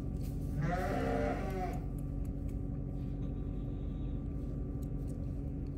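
A single long, wavering call from an adult farm animal, about a second long, starting just under a second in, over a steady low hum.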